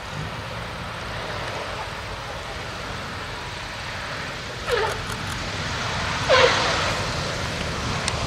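Boeing B-17G's four radial engines running at low power through the landing, with two short tyre squeals as the main wheels touch down, each dropping in pitch, the second louder, about a second and a half apart.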